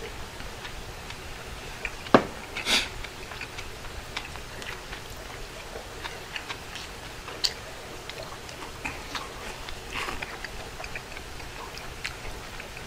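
Eating noises at a table: chopsticks clicking against ceramic bowls, with chewing and a couple of short slurps of udon noodles. A sharp knock about two seconds in as a ceramic bowl is set down on the wooden table.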